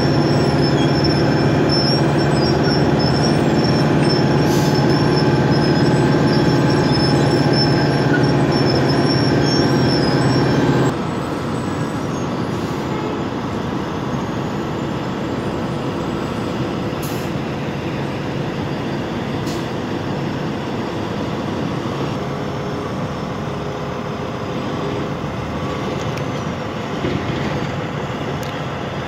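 Asphalt milling machine (cold planer) running, its diesel engine and cutting drum chewing up the road surface while the conveyor feeds a dump truck, with a high thin whine over the steady mechanical noise. The noise drops noticeably about 11 seconds in and carries on steadily at the lower level.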